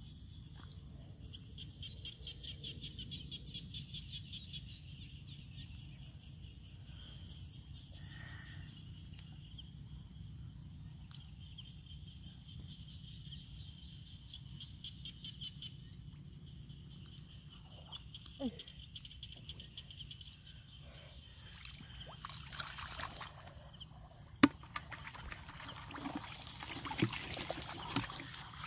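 Background wildlife calling in a high, pulsing trill that comes and goes in bursts, over a low steady hum. Near the end come wet splashing and squelching from hands working in mud and water, with one sharp knock louder than everything else.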